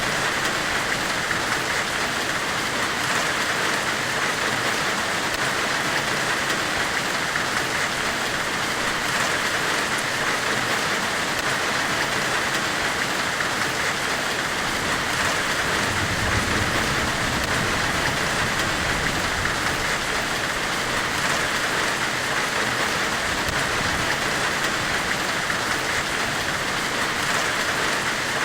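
Steady, even hiss of a forge-weld white-noise ambience, with no breaks or strokes, brightest in the upper middle. A faint low rumble swells for a few seconds a little past the middle.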